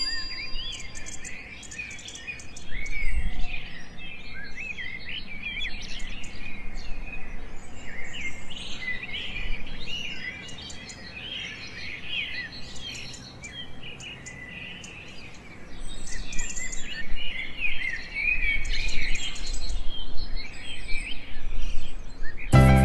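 A chorus of small birds chirping and twittering throughout, many short, overlapping calls, over a low background rumble.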